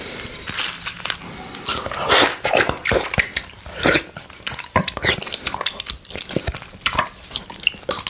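Close-miked licking and slurping of orange juice from a glass plate: an irregular run of wet mouth clicks and smacks.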